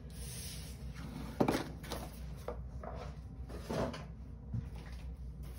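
Handling noise from a cardboard subscription box being packed up and cleared off a wooden desk: a few knocks and rustles, the loudest about a second and a half in, over a steady low hum.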